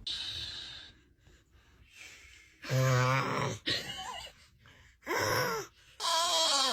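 A man snoring loudly with exaggerated, voiced snores: a breathy snort at the start, then three drawn-out groaning snores, the last one falling in pitch.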